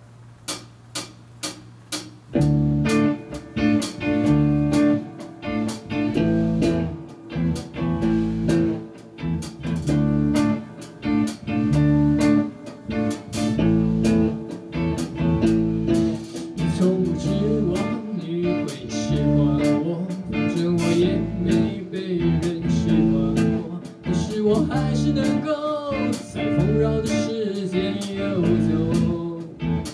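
Live rock band: a few evenly spaced sharp clicks count the song in, then electric guitar, bass and drums come in together about two seconds in. A male voice sings over the band in the later part.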